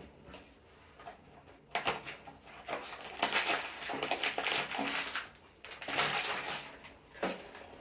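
Rustling and rapid clicking and clattering of small objects being handled, in a spell of about three seconds starting near two seconds in, then a shorter one near the end.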